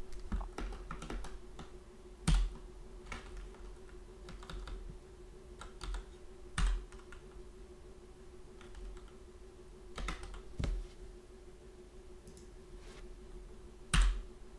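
Computer keyboard being typed on slowly and unevenly: single keystrokes with pauses between them, a few of them louder.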